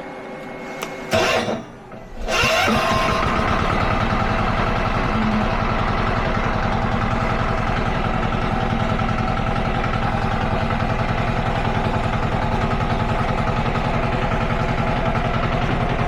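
Mini skid steer's engine starting about two seconds in, then running steadily with an even, rapid beat.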